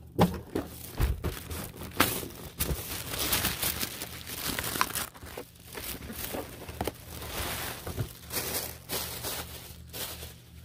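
Clear plastic wrapping crinkling and tearing as it is pulled off a diecast car box by hand, a dense run of irregular crackles.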